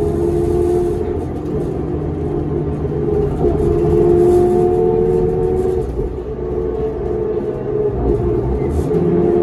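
Inside a 2005 New Flyer D40LF transit bus under way: the Cummins ISL diesel and ZF automatic transmission run with a steady whine that climbs in pitch, falls back, and climbs again near the end, over a low rumble with light interior rattles.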